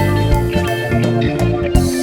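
Background music: a guitar-led band track with bass and a steady drum beat.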